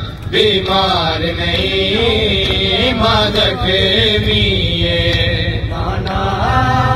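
Men chanting a noha, a Shia lament, in a continuous sung recitation, over the rhythmic beat of hands striking chests in matam.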